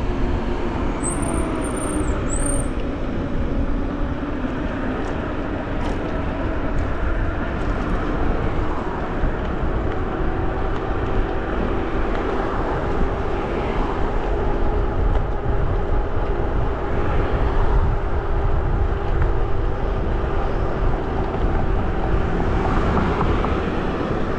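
Wind rushing over the microphone and tyre noise from an e-bike in motion, with a steady low hum running through it. Two short high chirps sound about one and two seconds in.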